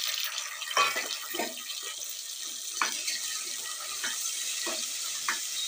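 Tomatoes sizzling in hot mustard oil with fried onions in a pressure cooker: a steady, loud hiss. A spatula scrapes and knocks against the pot several times as it stirs.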